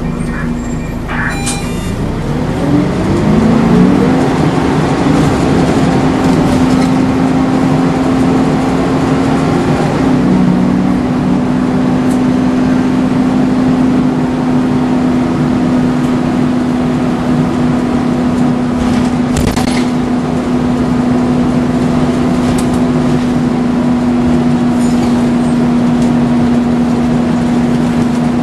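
Volvo Wright Renown bus's engine cooling fan spinning up, its drone rising in pitch over about two seconds, then running loud and steady at one pitch. A few faint clicks come over it.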